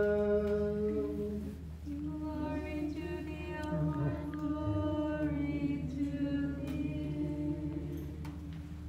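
Unaccompanied liturgical chant: a long held note ends about a second and a half in, then a short sung response of several notes. This is the sung response after the Gospel reading in an Orthodox service.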